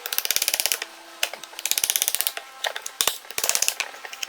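Hand ratchet wrench clicking in several short bursts of rapid, even clicks as the handle is swung back and forth.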